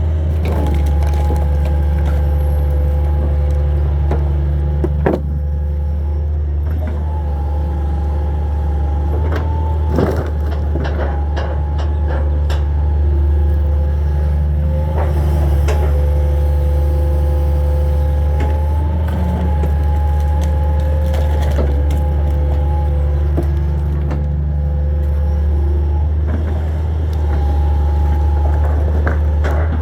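Hitachi 225 excavator's diesel engine running steadily at working revs, with a hydraulic whine that drifts slightly in pitch. Scattered sharp knocks and cracks of wood and debris being handled come through, the clearest about five and ten seconds in.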